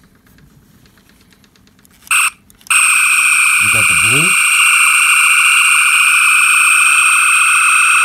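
The Wand Company Star Trek original-series hand phaser remote firing on setting 8. A short electronic chirp about two seconds in, then the loud phaser beam sound starts half a second later and holds as a steady electronic tone of several fixed pitches.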